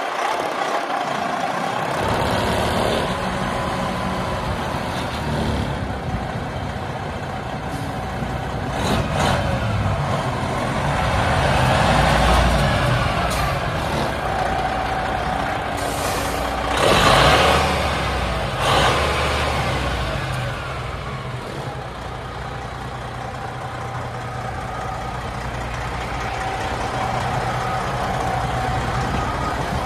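Heavy diesel truck engine running steadily, with short hisses of air about 9 and 17 seconds in.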